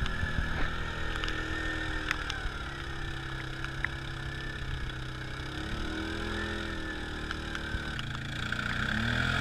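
Off-road four-wheeler engine running at low speed. Its pitch sags, climbs about six seconds in, eases off, and rises again near the end.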